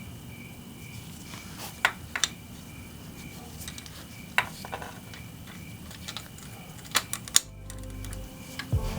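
Scattered sharp metallic clinks of hand tools, a socket and wrench, against motorcycle engine parts, a few seconds apart. Background music comes in near the end.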